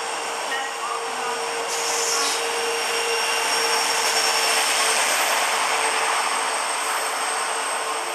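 WDP-4D diesel-electric locomotive, with its 16-cylinder EMD two-stroke engine, running through at speed and hauling an express. It grows to its loudest as the locomotive passes about four seconds in, then the passenger coaches roll by, with a faint steady high whine over the noise.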